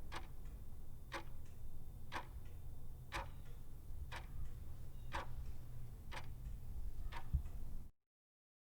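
A clock ticking about once a second over a low steady hum. The sound cuts off abruptly near the end.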